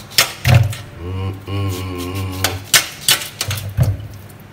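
Several sharp knife clicks and knocks as raw yellow yam is cut in the hand over a plastic bowl in a steel sink, a pair near the start and a cluster in the last second and a half. In between, a man hums a wavering held note for about a second and a half.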